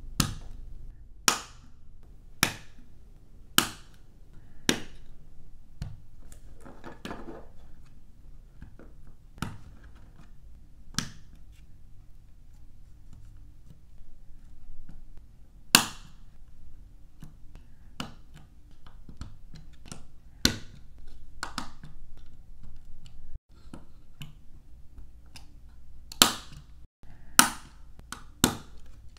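LEGO bricks being pressed and snapped together by hand, each join a sharp plastic click. About one click a second at first, then scattered clicks with a short rustle of handled pieces, and a quick run of clicks near the end.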